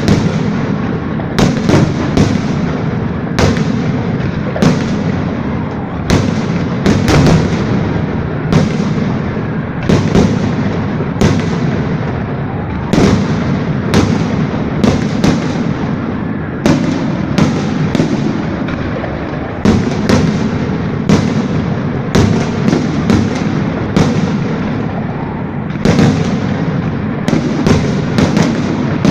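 Fireworks salute: aerial shells bursting in a steady series of sharp bangs, about one a second, each trailing off in echo, over a continuous low rumble.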